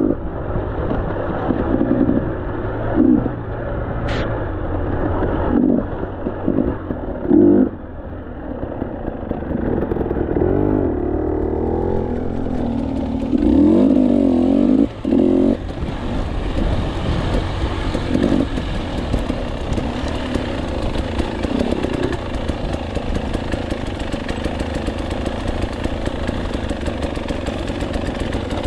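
KTM 300 two-stroke enduro motorcycle engine revving in short bursts, pitch rising and falling, with clatter from the bike. After about the middle it settles into a steadier run at lower revs.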